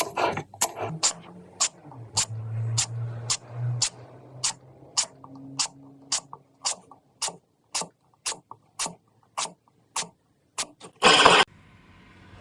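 A steady series of sharp clicks or taps, about two a second, with a low hum beneath them for a couple of seconds. Near the end comes a short, loud rush of noise.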